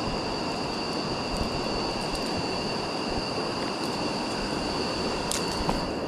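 River water rushing over stones, a steady, even rush, with a steady high whine on top of it. A couple of sharp clicks come near the end.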